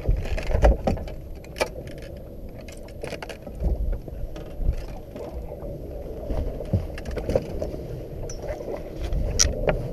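Irregular clicks and knocks of a spinning reel and tackle being handled on a boat deck while a hooked fish is played and the landing net is brought up, over a steady low rumble of wind and water.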